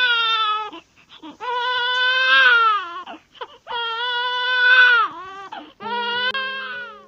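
A baby crying in four long wails, each a second or more, each falling in pitch at its end. Steady held musical tones come in near the end.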